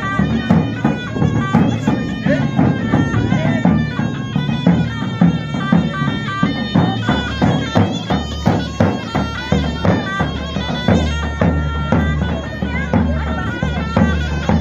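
Zurna playing an ornamented folk dance melody over a steady davul drum beat: halay dance music.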